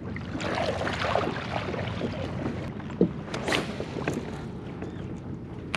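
Water splashing and lapping close around a kayak, a crackle of small splashes with a single knock on the hull about three seconds in.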